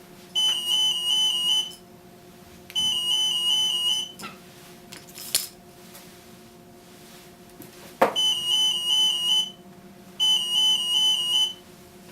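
Alarm of an acousto-magnetic (AM) EAS anti-theft security gate, mono model, going off as it detects a security tag. It gives four bursts of fast, high-pitched pulsed beeping, each a little over a second long, in two pairs: one pair starting about half a second in and the other about eight seconds in.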